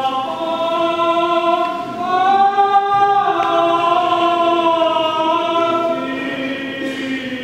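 Byzantine-rite liturgical chant, sung in long held notes that glide up in pitch about two seconds in and drop back down about a second later.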